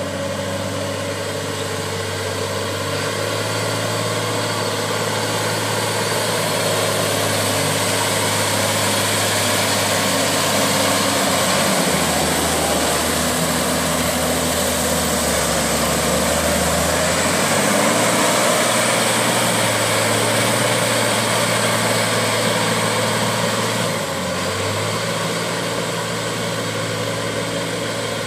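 Valtra T191 tractor's six-cylinder diesel engine running steadily under load while it works a flooded, muddy paddy with a rear rotary tiller. It grows louder as the tractor comes close, and the engine note drops lower for a few seconds about midway.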